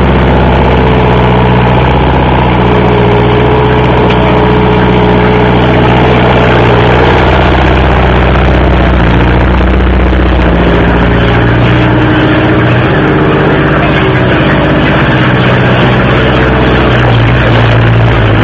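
Loud machinery running steadily, an engine-like hum whose pitch shifts several times, over a dense noisy din.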